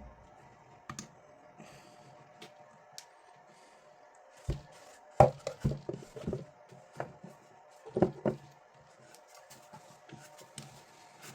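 Hands handling and fitting parts of a diaphragm air pump, giving scattered clicks and a run of louder knocks about halfway through, over a faint steady hum.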